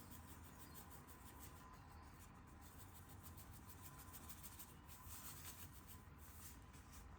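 Near silence: faint room tone with soft, faint rustling.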